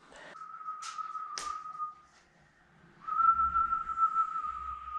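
A person whistling two long, steady notes at the same pitch to call a puppy. The second note starts about three seconds in and is the louder one. Two sharp clicks fall during the first note.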